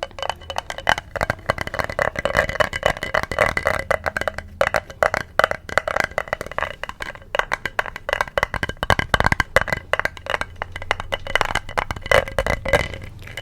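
Fast ASMR tapping on a hard object, many quick taps a second with a light ringing tone.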